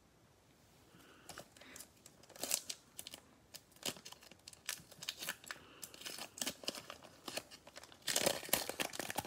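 Panini Prizm football cello pack being torn open by hand: sharp crackles and crinkling of the plastic wrapper, starting about a second in, densest near the end.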